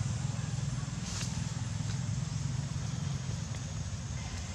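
Steady low rumble of an engine running, with one faint click about a second in.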